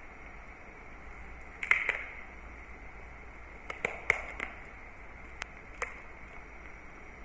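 Yorkshire Terrier gnawing a spare rib bone: scattered crunches and clicks of teeth on bone, the loudest cluster about two seconds in, another around four seconds, and a couple of single clicks after.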